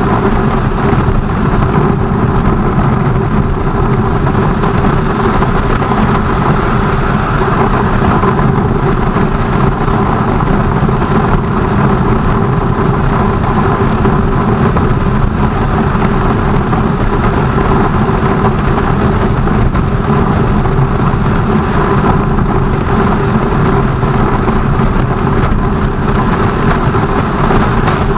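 BMW R 1200 GS flat-twin engine running steadily at an even speed, loud and close, with a dense rushing noise beneath it.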